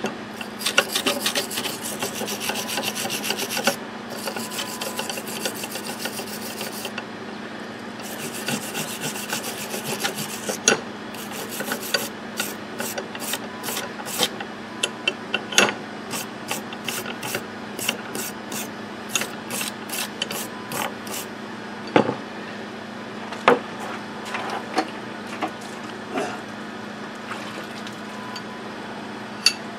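Hand wire brush scrubbing a wet steel vise spindle, taking off the loose corrosion residue left after an electrolysis bath. Quick, fast scraping strokes come in bursts, then slow to separate strokes about twice a second, with a few sharp knocks in the second half.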